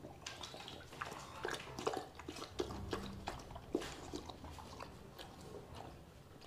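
Siberian husky lapping water from a steel bowl: a quick, irregular run of wet laps and slurps that thins out near the end.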